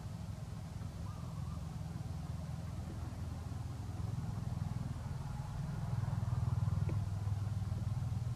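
A low, steady engine hum that grows louder about six seconds in, with a faint click near the end.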